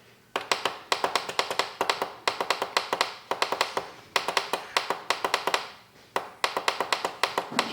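Plus button on a digital wall clock clicked rapidly over and over, about five or six presses a second in runs with short pauses, as the minutes are stepped up.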